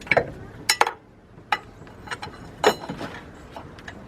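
Socket wrench and extension on a spark plug: a few sharp, irregular metal clicks and clinks as the ratchet and socket work the plug loose.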